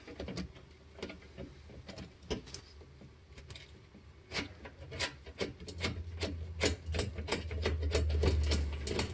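Hand ratchet clicking in short runs as underbody cover bolts are loosened, the clicks coming thicker in the second half, with a low hum joining about halfway.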